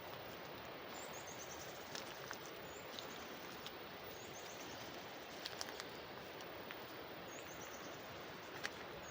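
Steady rush of water flowing along an irrigation channel. A small bird repeats a short, high, descending trill about five times, and a few light crackles of footsteps on dry leaves come and go.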